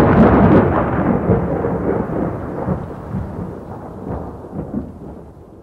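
A loud, deep rumble like rolling thunder that dies away over several seconds, its hiss fading first until only a low rumble is left at the end.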